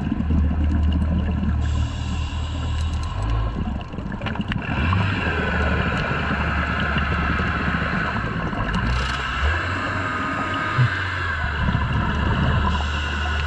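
Underwater sound heard through a dive camera's housing: a steady low drone with the gurgling of scuba divers' exhaled bubbles.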